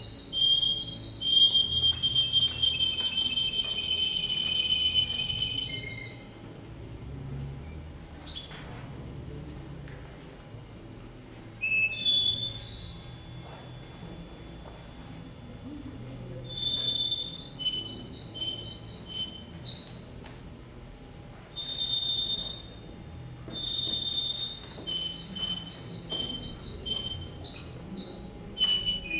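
Male domestic canary singing: a long song of rolling trills, each held at one pitch for a second or up to several seconds before jumping to another, higher or lower. There are short lulls about six seconds in and again about two-thirds through.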